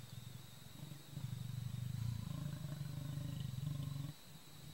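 A male leopard growls low at its own reflection in a mirror. The growl is faint at first, then a single long growl starts about a second in and lasts about three seconds before breaking off.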